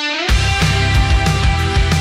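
Rock intro music with a steady driving beat, opening with a short rising sweep.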